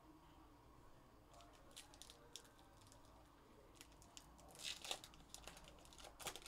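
Foil wrapper of a Goodwin Champions trading-card pack being torn open and crinkled by hand: scattered crackles, loudest a little before the end.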